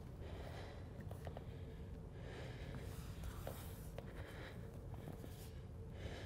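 A person's slow, audible breathing, three breaths over a few seconds, over a steady low room hum with a few small clicks.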